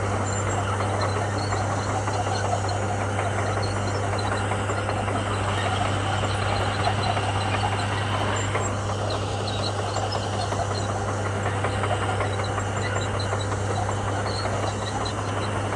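Komatsu bulldozer's diesel engine running steadily, with a constant low drone.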